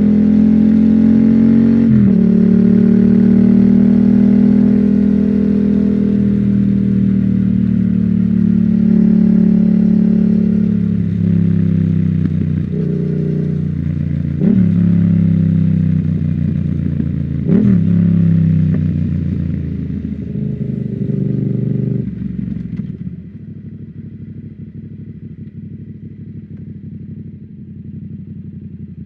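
2019 Yamaha MT-07's 689 cc parallel-twin engine running through an Akrapovic full exhaust system on the move, its note rising and falling with the throttle. There are three quick breaks in pitch, about two seconds in and twice more past the middle, typical of gear changes. Near the end the engine drops to a much quieter, lower steady running.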